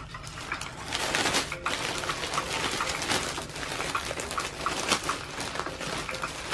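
Clear plastic poly bag crinkling and rustling as it is handled and opened, a dense run of small crackles starting about half a second in.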